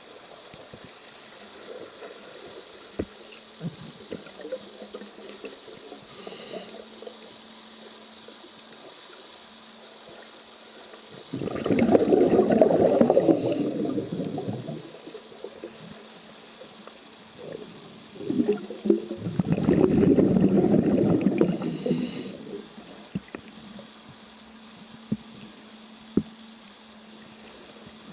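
Scuba diver's regulator exhaling underwater: two bubbling rushes, each about three seconds long and roughly eight seconds apart. A faint steady hum and scattered small clicks run between them.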